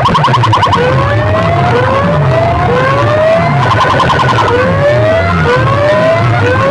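Siren-effect DJ track played loud through big sound-box speakers: a rising whoop repeating about every second and a quarter over falling bass sweeps, with fast warbling bursts near the start and again about four seconds in.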